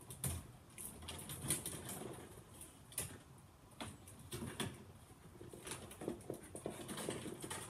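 Irregular light clicks, taps and scraping of electrical wires being handled and pushed into a breaker panel, with a few sharper ticks where wire or tool strikes the panel's metal.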